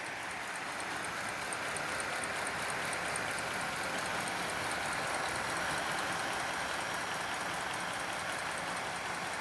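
An overhauled film projector running, its mechanism clattering steadily in a fast, even rhythm.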